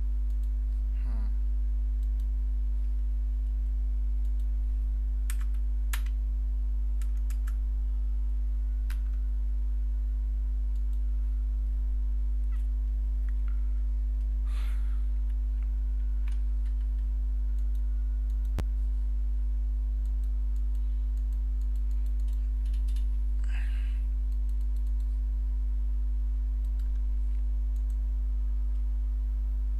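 Steady low electrical hum with several overtones, over which a handful of faint, scattered computer keyboard key presses and mouse clicks sound.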